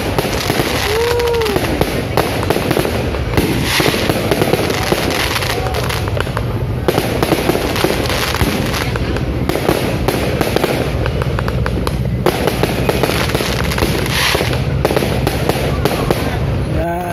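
Aerial fireworks display: shells bursting overhead in dense, unbroken crackling and popping.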